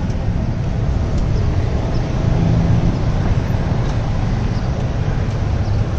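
Steady street traffic noise with a low rumble from passing motorbikes and cars.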